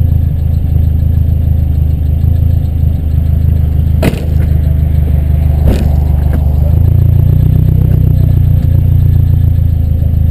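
Car engine running at low revs, heard through a GoPro's open-back case on a suction-cup mount, with two sharp knocks about four and six seconds in and a change in the engine note near seven seconds.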